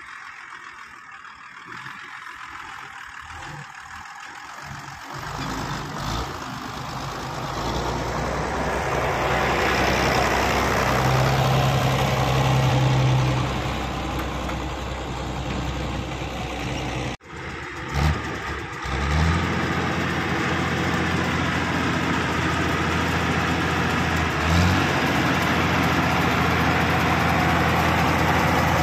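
Tractor diesel engine pulling a Krone Turbo 2800 self-loading forage wagon, growing louder as it comes close and working hard. After a brief break it runs on with a steady hum.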